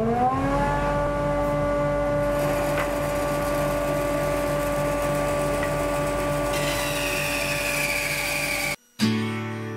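Band saw switched on, its motor whining up to speed in the first second and then running steadily with a pulsing hum. About two-thirds of the way through a higher hissing tone joins as the board is fed into the blade. The sound cuts off abruptly near the end and acoustic guitar music follows.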